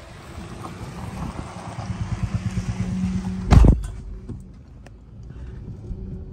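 A motorcycle passing close by a slowly moving car, its engine growing louder for about three seconds, with a loud thump as it goes past, then the car's own quieter running.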